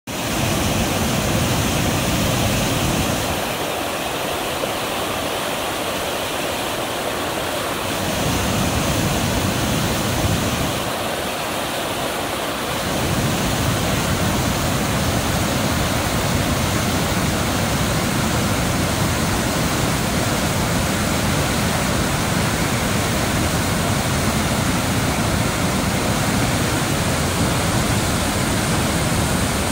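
Snake River Falls, a river waterfall pouring over a rock ledge: a steady rush of falling water. Its low rumble thins out twice for a few seconds in the first half.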